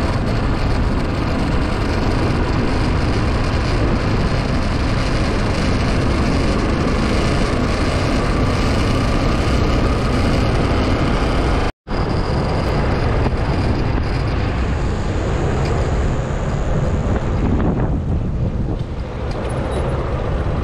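Steady wind rumble on the microphone of a camera moving along a road, with road and traffic noise underneath. The sound drops out for a split second about twelve seconds in.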